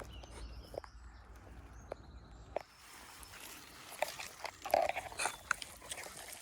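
Footsteps pushing through undergrowth: rustling leaves and scattered twig snaps, with a cluster of louder crunches about four to five seconds in.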